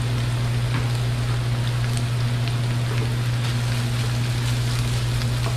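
Butter, garlic and freshly added chopped cilantro sizzling in a frying pan, with fine crackles and pops, stirred with a spatula in the second half. A steady low hum runs underneath.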